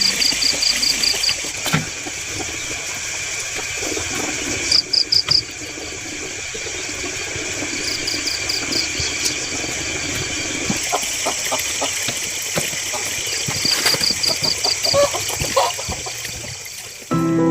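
Farmyard and forest sounds: chickens clucking against a steady high insect buzz, with bursts of rapid high-pitched chirping trills repeating every few seconds.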